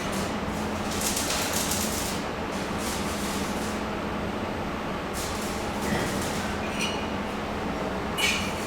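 Steady electrical hum with a constant noisy rush, broken by a few brief hissing bursts.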